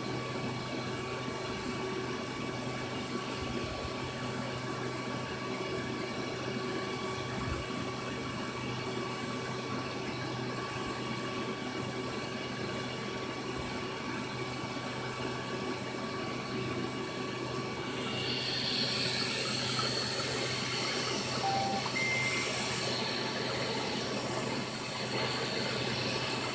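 Aquarium filter running in a turtle tank: a steady hum with running water, turning brighter and splashier about two-thirds of the way through.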